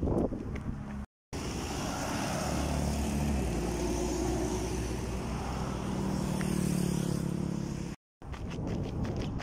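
Road traffic at a junction: car and motorcycle engines running with a steady hum, broken by two brief dropouts. Near the end, running footsteps patter at a steady pace.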